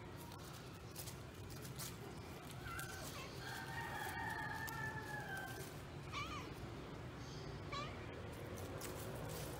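A cat meowing once, long and drawn out, about three seconds in, followed later by two short chirps.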